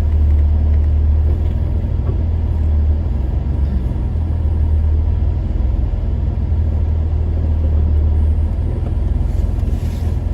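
Low, steady rumble of an off-road vehicle driving slowly on a trail, heard from on board.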